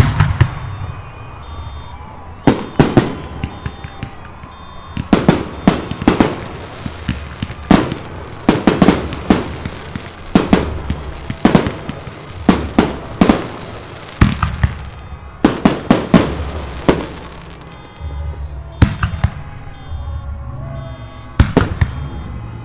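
Aerial fireworks shells bursting in a rapid series of sharp bangs, many coming in quick clusters of two or three, each followed by a low echo, with only short gaps between volleys.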